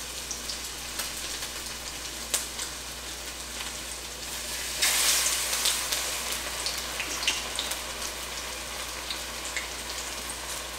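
Sauce-coated blue runner fillets frying in hot oil in a stainless steel skillet, a steady sizzle with scattered crackles and pops. About five seconds in, another dipped fillet is laid into the pan and the sizzle flares up louder for a second or two.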